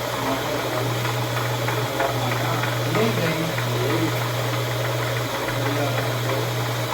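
Machine tool motor running with a steady hum, with scattered clicks and rattles of metalwork over it.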